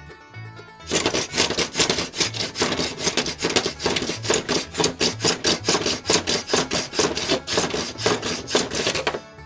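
Small hand plane scraping along a glued rod blank in quick back-and-forth strokes, about four or five a second, taking off the excess glue. The strokes start about a second in and stop shortly before the end, over background music.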